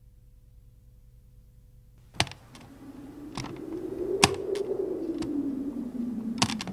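Soundtrack sound effects: near quiet with a faint hum for about two seconds, then scattered sharp clicks, a few a second, like typing, over a low tone that slowly rises in pitch and sinks again.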